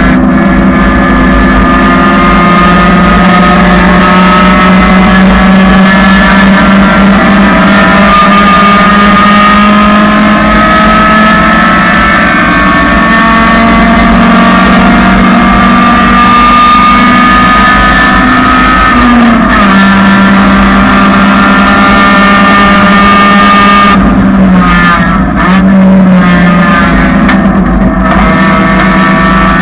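1999 Honda Civic's four-cylinder engine running hard at high revs on a racetrack, loud and steady. Its pitch dips briefly about two-thirds of the way through and again a few seconds later, then climbs back.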